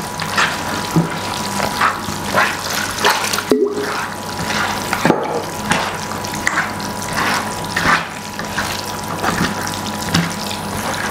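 Bare hands squeezing and kneading wet minced-meat filling in a plastic bowl: a wet squelching, repeated irregularly about once or twice a second.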